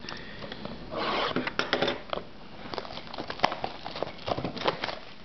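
A shrink-wrapped cardboard trading-card box being handled: plastic wrap crinkling, with a burst of rustling about a second in and scattered clicks and taps of fingers on the box.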